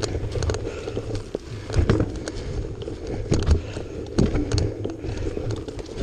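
An off-road vehicle's engine running at low revs, with irregular knocks and clatter from rough ground.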